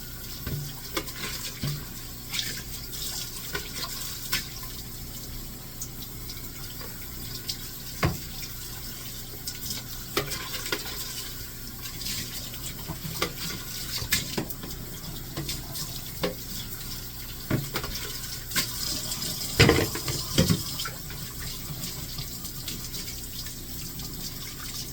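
Kitchen tap running into a sink while dishes are washed, with scattered clinks and knocks of plates and pots; the loudest knocks come about twenty seconds in.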